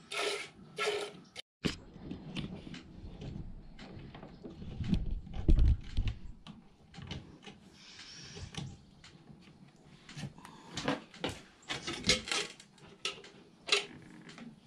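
Hand-milking a mini Jersey cow into a metal pail: short squirts of milk strike the pail, more often in the second half. A low rumbling thump about five seconds in is the loudest sound.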